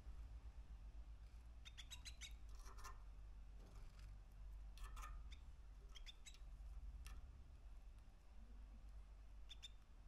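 Young male canary, about three months old, giving faint short chirps in small clusters every second or two, over a steady low hum.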